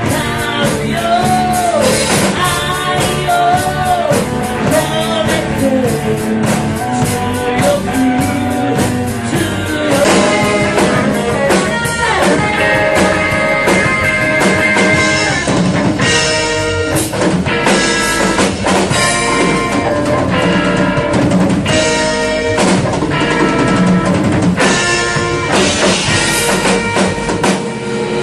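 Rock song with a drum kit keeping a steady beat, guitar and a singing voice. The singing is heard in roughly the first nine seconds, and held instrumental notes follow.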